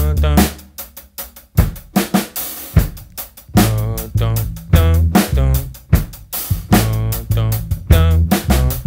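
Drum kit playing a steady groove of kick, snare and hi-hat, with a bass line of held low notes and a voice singing along with the bass line.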